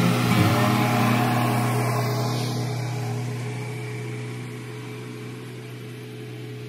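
An engine running at a steady speed, its level fading gradually.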